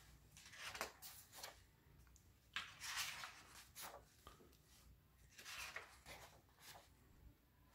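Glossy pages of a large art book turned and handled by hand: faint papery swishes and rustles, a fresh one every couple of seconds.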